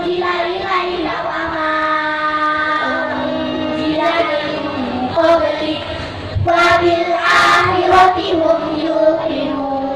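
Group of children singing one melody together with long held notes, through microphones and a PA system.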